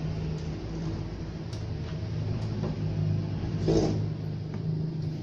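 A steady low hum and rumble, with a few faint clicks and a brief louder bump a little before four seconds in.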